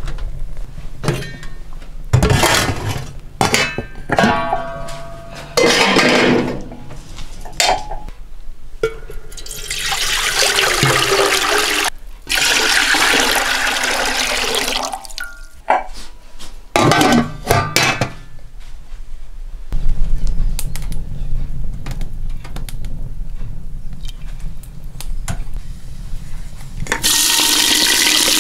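Kitchen work at a wood-fired stove: clattering and knocks, then water poured from a jug into a steel pot for several seconds, then more clatter. Near the end a loud, steady sizzle starts as sliced onions drop into hot oil in a stone pot.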